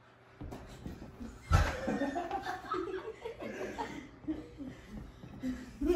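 Quiet chuckling and laughter, with a sharp thump about a second and a half in and another near the end.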